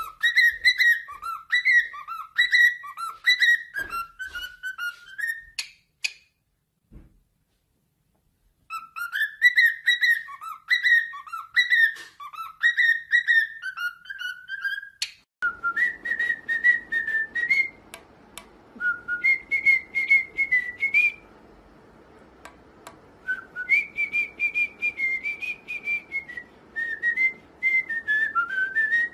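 Cockatiels whistling: quick, repeated rising-and-falling whistled phrases with a pause in the middle, then longer wavering whistles over a light hiss, with a few light clicks.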